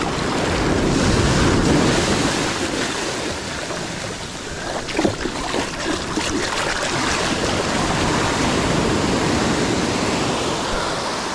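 Ocean surf washing in and out, with wind buffeting the microphone. A few brief sharp sounds, knocks or splashes, come about halfway through.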